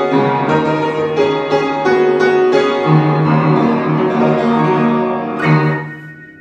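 Piano being played: a run of notes over a held bass, closing on a final chord about five and a half seconds in that dies away.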